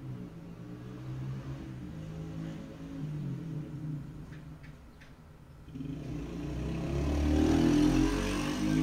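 A motor vehicle's engine running, its pitch shifting, growing louder over the last few seconds and loudest near the end.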